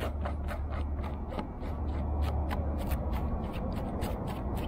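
A rubber eraser scrubbing back and forth over fabric covering in short strokes, about four a second, lifting excess glue from the fabric. A steady low hum runs underneath.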